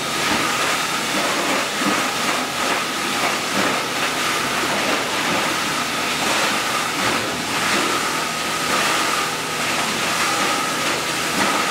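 PP/PE plastic bottle recycling and washing line running: a steady rushing machinery noise with a constant high whine over it.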